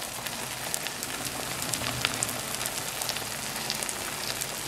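Beaten egg with fried diced peppers sizzling in a little vegetable oil in a frying pan: a steady frying hiss with scattered small crackles and pops.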